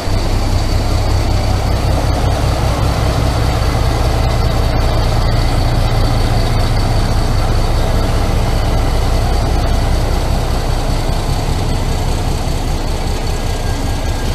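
Diesel locomotive engine running with a steady low drone as the locomotive moves slowly past, hauling a passenger coach.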